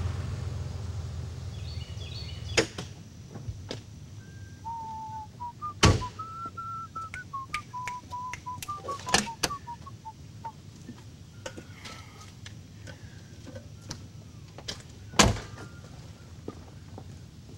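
A car engine dies away at the start, then a person whistles a short tune of held notes, while car doors thunk shut, loudest about six seconds in and again near the end, with lighter clicks between.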